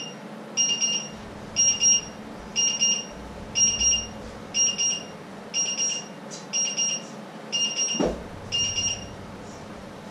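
Electronic timer alarm beeping: bursts of four quick high-pitched beeps, about one burst a second, that stop shortly before the end. A single knock sounds about eight seconds in.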